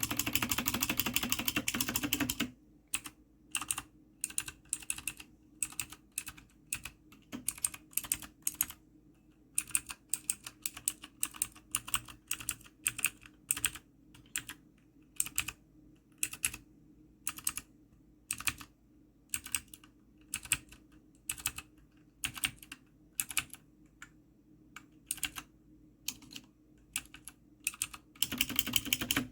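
Newmen GM610 mechanical keyboard with clicky blue switches being typed on as a sound test. It opens with a fast run of keystrokes, goes on with separate key presses and short bursts, and ends with another quick run.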